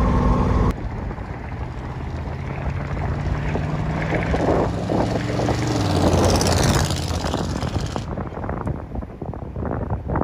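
1978 Chevrolet K5 Blazer's 350 V8 running, briefly from inside the cab, then heard from outside as the truck approaches, drives past and pulls away. The engine note and tyre hiss build to the pass and drop off after it.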